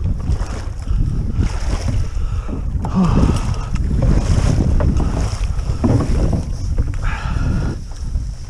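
Wading through shallow marsh water and flooded grass, with irregular splashing steps, under heavy wind rumble on the microphone.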